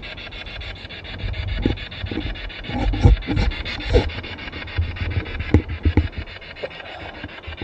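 Spirit box sweeping through radio stations: rapid, evenly chopped radio static, with a few knocks and bumps in the middle.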